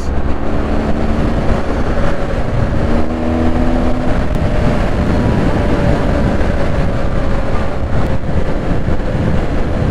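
Motorcycle engine running steadily while riding on the road, with heavy wind rumble on the microphone.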